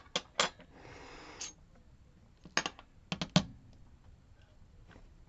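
Sharp clicks and taps of small metal lock parts and tools being handled, with a short scrape about a second in and a quick cluster of clicks past the middle.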